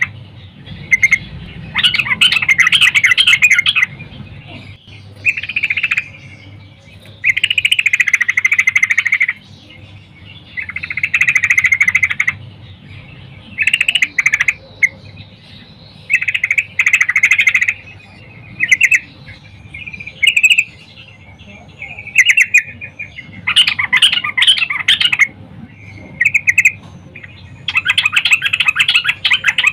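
Yellow-vented bulbul (trucukan) singing: about a dozen short, bubbly, chattering phrases of one to two seconds each, with brief pauses between them.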